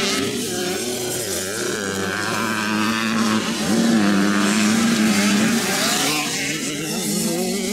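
Motocross bike engines revving up and dropping back again and again as riders accelerate and shift on a dirt track.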